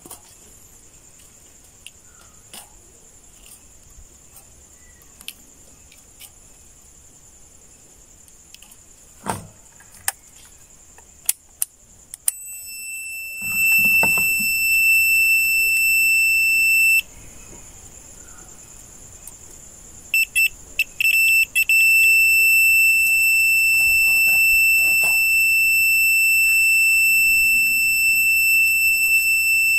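A loud, steady, high-pitched electronic alarm buzzer tone. It begins about twelve seconds in, cuts off for a few seconds, comes back as a few short beeps, then holds on continuously. Before it there is only a faint high hiss with a few light clicks.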